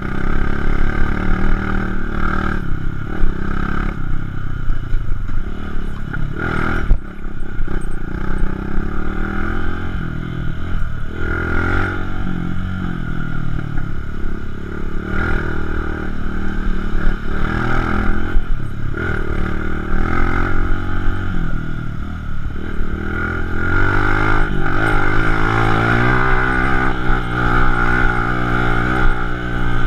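Dirt bike engine running under changing throttle as it rides a rough trail, its pitch rising and falling repeatedly, with occasional knocks and rattles from the bike.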